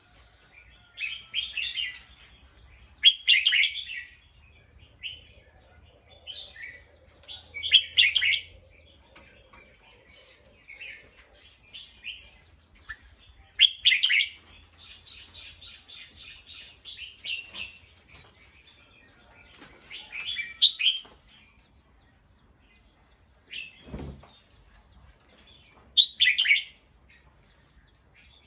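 Bulbul singing in short phrases every few seconds, one of them running on into a quick series of repeated notes about halfway through. A single low knock comes about two-thirds of the way in.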